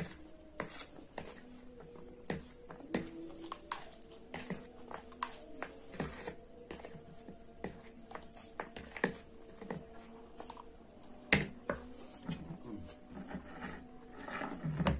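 Close-up eating sounds: a metal fork clicking and scraping on a plastic plate while the last instant fried noodles are picked up, with chewing and slurping of the noodles. The taps come irregularly, with one sharper knock a little past eleven seconds.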